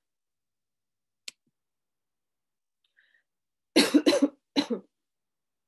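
A woman coughing three times in quick succession, a little under four seconds in, with a faint click just over a second in.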